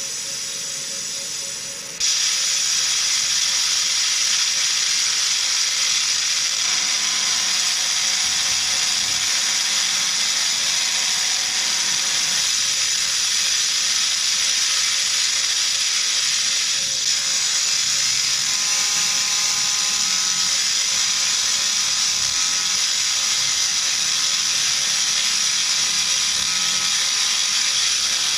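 Fiber laser marker (JPT 60W MOPA source) deep-engraving a metal block: a loud, steady high-pitched hiss-buzz that starts abruptly about two seconds in, over a quieter steady machine noise.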